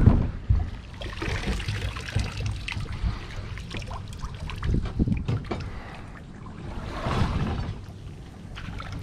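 Water dribbling and dripping out of a plastic kayak hull into the water below as the boat is tipped up, with occasional knocks of the hull being handled. It is the small amount that seeped in past a plastic-welded hull patch during the trip.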